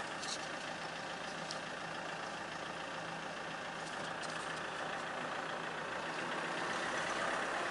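Diesel engine of a SsangYong frame SUV heard from inside the cabin, running steadily with a constant low hum as the car moves off, slowly growing louder toward the end.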